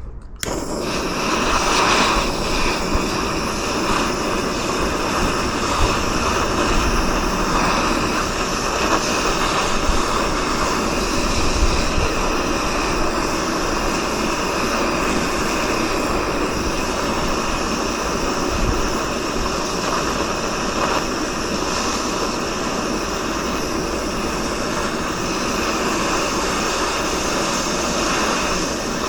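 Small handheld gas torch burning with a steady hiss, heating seized bolts to free them.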